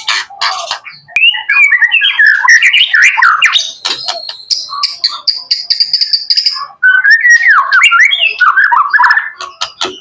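Young male white-rumped shama singing a loud, varied song of whistled phrases, quick pitch glides and sharp chips, with one long steady high note in the middle.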